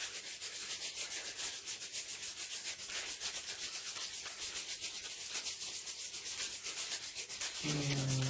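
A hand rubbing a wax strip firmly down onto a hairy leg with quick back-and-forth strokes, about five or six a second, pressing it to the hair before it is ripped off. Near the end comes a short low vocal groan.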